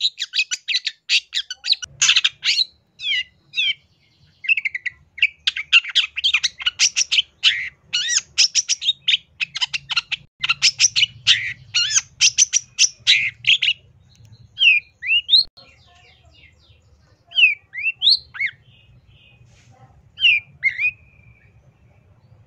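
Long-tailed shrike (cendet) singing: a fast, dense run of sharp chattering notes for about fourteen seconds, with a brief break near the four-second mark, then only scattered single slurred calls.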